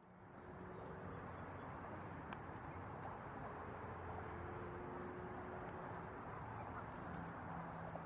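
Steady outdoor background noise with a faint low hum, and three faint, short, high chirps falling in pitch from a small bird: about a second in, midway, and near the end.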